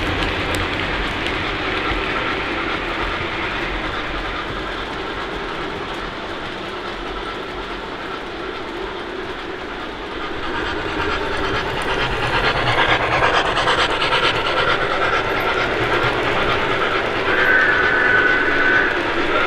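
O gauge model locomotive running on a layout: a steady clatter of wheels over the track mixed with the locomotive's onboard sound effects. It grows louder from about halfway, and a steady high tone sounds briefly near the end.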